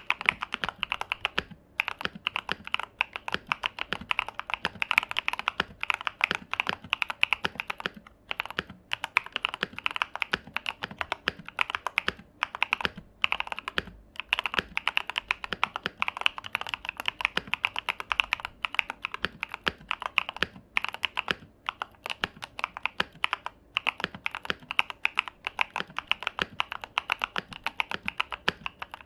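Fast, continuous typing on a KBDfans Tofu mechanical keyboard with SA-profile keycaps: a dense run of keystroke clacks, broken by a few brief pauses.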